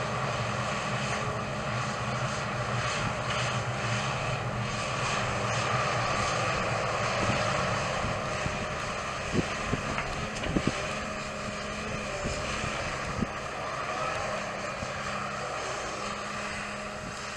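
Tracked hydraulic excavator's diesel engine running steadily as it digs and swings, with a few sharp knocks about ten seconds in.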